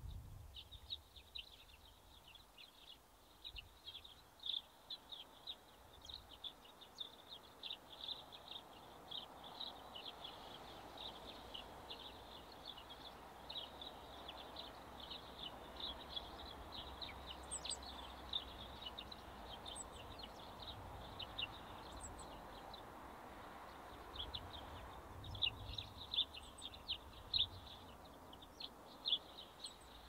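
Small songbirds chirping: a steady stream of short, high calls in quick succession, busiest near the end, with a few thinner, higher notes in the middle. A faint low background noise runs underneath.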